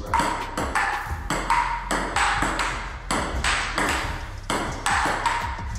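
Table tennis ball rallying back and forth, clicking off the table and the paddles at about three hits a second, each hit ringing briefly.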